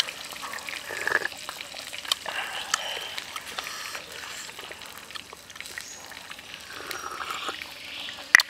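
A few wet sips and slurps from a small cup, with scattered soft mouth clicks.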